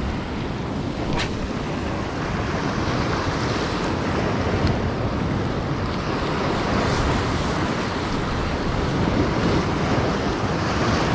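Sea waves washing in with wind buffeting the microphone, a steady rushing noise throughout, with a brief sharp click about a second in.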